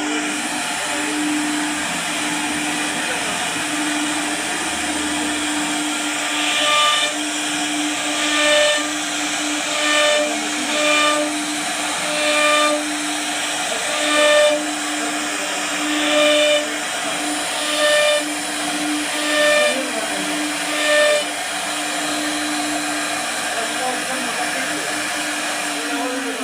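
CNC machine running: a steady motor hum, with short whining tones repeating about every second and a half through the middle stretch. Near the end the hum begins to drop in pitch.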